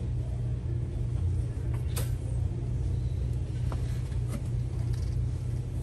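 Steady low background rumble, with one sharp click about two seconds in and a couple of fainter knocks later.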